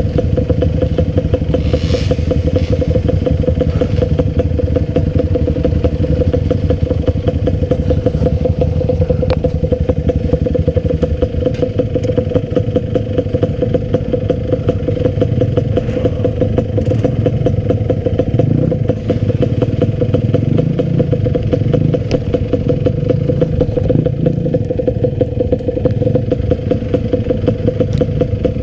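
Enduro dirt bike engine running steadily under way, with a constant droning note; the engine note shifts a little about eleven seconds in.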